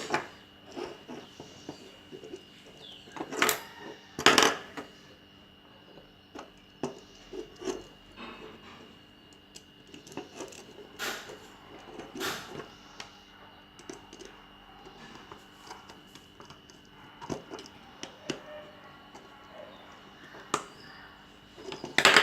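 Electrical wiring work by hand: scattered small metallic clicks and taps from a screwdriver and switch and lamp-holder fittings as wires are connected, with a few louder knocks.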